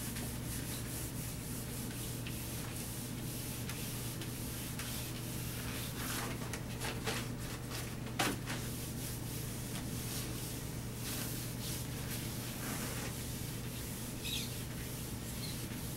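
A whiteboard being wiped clean with an eraser, rubbing in repeated strokes across the board, with one brief knock about eight seconds in.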